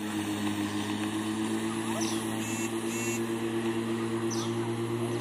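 Small electric lawn mower running with a steady, even hum as it is pushed over grass. A few short high chirps come in on top about two and four seconds in.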